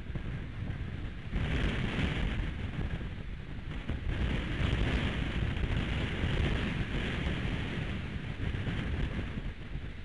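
High wind buffeting the nest-cam microphone: a low rumble with a rushing hiss that rises sharply about a second and a half in, gusts strongly, then eases off near the end.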